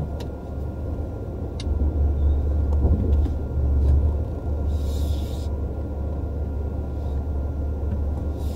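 Steady low rumble inside a Mercedes car's cabin as it is driven slowly and manoeuvred into a parking spot, with a brief hiss about five seconds in.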